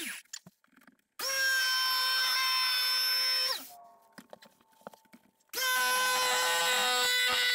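Corded electric jigsaw cutting through pine wall boards in two runs, the first about two and a half seconds long and the second starting about five and a half seconds in. Between them the motor stops, its whine dropping in pitch as it winds down, and there are a few small clicks.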